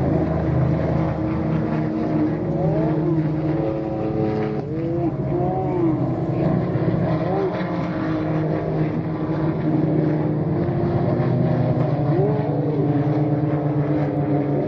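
Several GT3 race car engines running hard on the circuit, overlapping, their pitch rising and falling as they brake, shift and accelerate.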